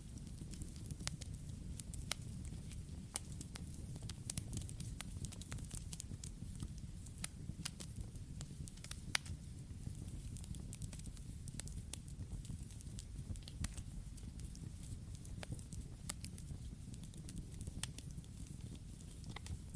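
Campfire crackling: irregular sharp pops and snaps, several a second, over a steady low rumble, with a louder pop about nine seconds in.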